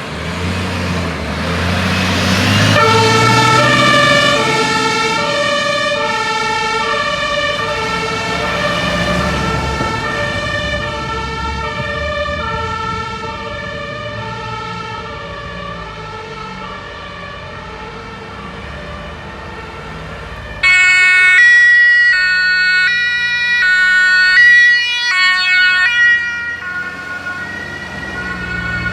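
German fire engine two-tone siren (Martinhorn) switching on about three seconds in over the truck's engine, alternating evenly between two pitches and slowly fading as the vehicle pulls away. About two-thirds of the way through, a much louder two-tone siren cuts in suddenly, then drops back near the end.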